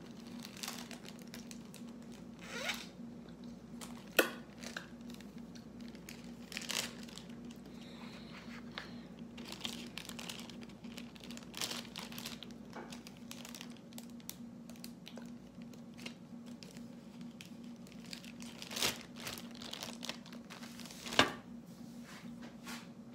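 Plastic zip-top sandwich bag crinkling as it is opened and a sandwich is slid inside, in irregular rustles, with two sharp snaps, one about four seconds in and one near the end.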